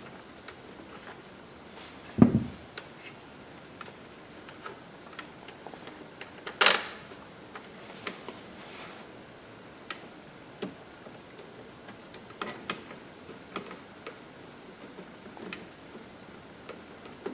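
Scattered light clicks and ticks of a screwdriver working the screws and the plastic side vent trim of a BMW Z4 E85 as it is fitted back in. There is a dull thump about two seconds in and a sharper knock just before seven seconds.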